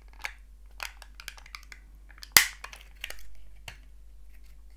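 Thin plastic pudding cups being snapped apart from a multipack: crackling and clicking of the plastic, with one sharp, loud snap about halfway through, followed by a brief rustle.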